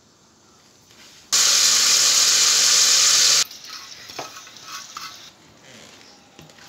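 Hot oil with whole spices sizzling in an aluminium cooking pot: a loud, even sizzle of about two seconds that starts and cuts off abruptly, followed by quieter cooking sounds with a few light clicks.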